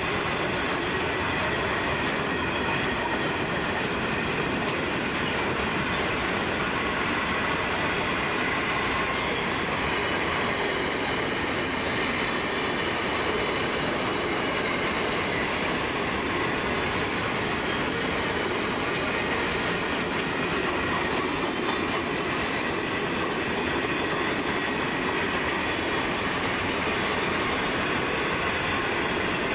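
Grain train's VHAF hopper wagons rolling past: steady wheel-on-rail noise and rumble, with faint steady high tones from the wheels.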